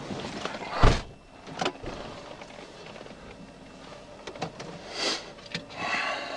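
A car door slamming shut about a second in, followed by lighter clicks and rustling.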